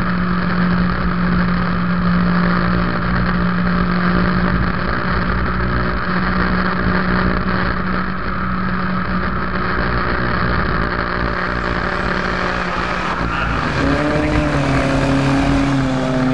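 1926 Salmson twin-cam race car's four-cylinder engine pulling hard uphill, heard from on board the car. Its note holds steady for most of the time, then changes pitch near the end as the revs shift.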